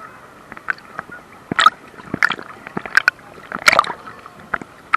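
Sea water splashing and sloshing close to the camera, a string of short sharp splashes about every half second to second, the loudest near the end.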